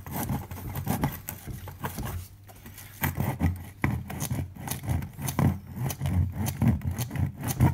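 Woofer of an LAcoustics X15 HiQ passive monitor speaker pushed in by hand, its voice coil scraping and rubbing in the magnet gap with irregular scratchy clicks. The coil has overheated and is rubbing, the burnt-out fault that left the speaker open.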